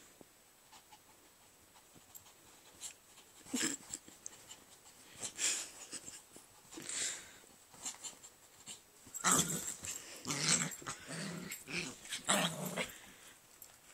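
A Pomeranian and a pit bull play-fighting, with short growls and snorts in separate bursts that come thicker and louder over the last few seconds.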